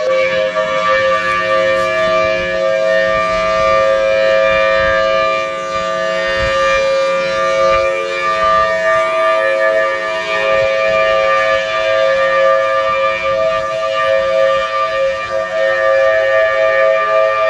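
Outdoor emergency warning siren sounding a steady, held wail during a scheduled system test, its loudness swelling and dipping slightly.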